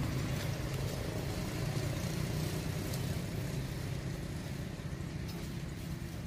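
Steady low motor hum, like an engine idling, with a few faint clicks over it.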